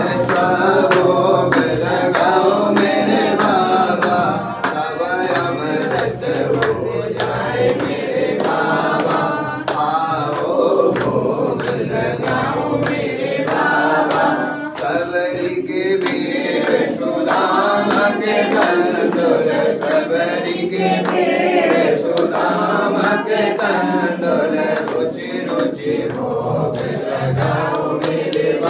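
Devotional song: several voices singing together over music, with a steady beat of percussion.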